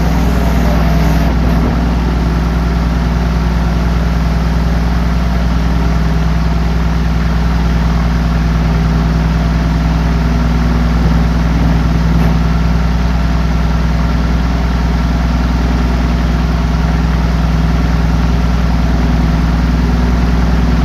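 ULPower UL520iS six-cylinder aircraft engine and propeller running steadily at about 1,200 rpm on a ground run, heard from the cockpit.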